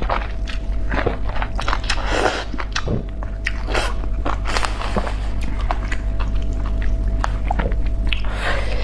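Close-miked mouth chewing of spicy enoki mushrooms: irregular wet, clicky bites and smacks, with a steady low hum underneath.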